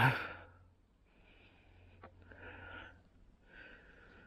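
A person breathing close to the microphone: a sharp puff of breath at the start that dies away within half a second, then two softer, slower breaths.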